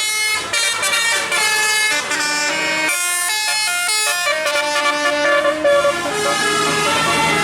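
A bus's telolet basuri melody horn playing a tune: a run of held notes with many overtones, changing pitch step by step, moving to lower notes about three seconds in.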